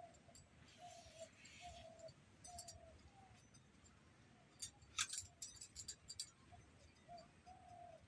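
Metal utensil clicking and clinking against the papaya pieces and dish while the seeds are scraped out, in a cluster of sharp clicks a little past halfway. Under it an animal gives a short call over and over, roughly every half second to second.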